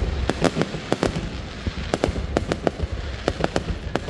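Fireworks going off in a rapid, irregular barrage of sharp bangs and crackles over a low rumble.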